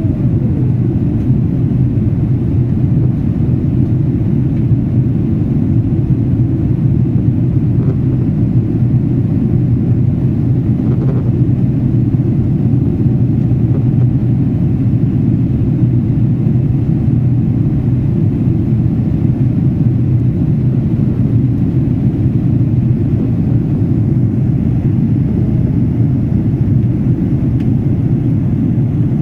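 Steady low rumble inside the cabin of an Airbus airliner in flight: jet engine and airflow noise heard from a window seat.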